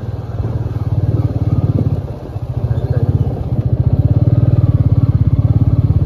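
Motorcycle engine running while the bike rides along, with a fast, even exhaust pulse. It gets louder in the second half and cuts off suddenly at the end.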